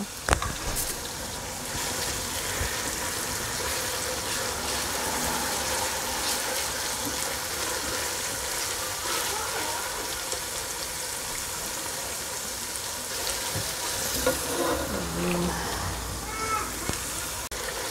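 Onion paste and whole spices frying in oil in a pot, a steady sizzle as it is stirred, with a sharp click right at the start.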